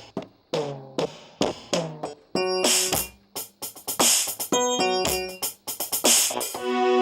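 Electronic beat: drum-machine hits that drop in pitch as they fade, with sustained synth-keyboard chords coming in about two and a half seconds in over the continuing percussion.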